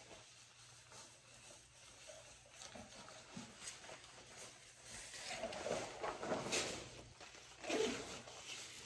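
Rain jacket fabric rustling as it is pulled on over a leather jacket, in irregular bursts, loudest about five to six and a half seconds in and again near eight seconds.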